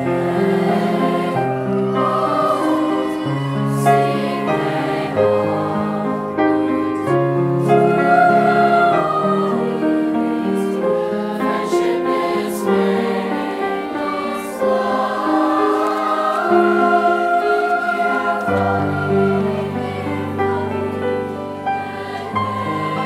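Youth choir of teenage voices singing in parts with piano accompaniment; the lower voices come in more strongly about two-thirds of the way through.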